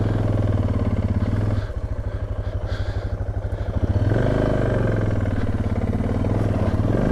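Suzuki DR650's single-cylinder engine running steadily, dropping to a slow, pulsing idle about a second and a half in, then revved up again around four seconds in and once more near the end. The bike is trying to get moving on soft, loose dirt.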